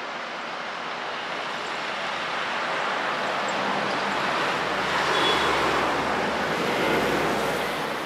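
Road traffic noise: a steady rush that grows louder as a motor vehicle passes, with a low engine hum joining in around the middle.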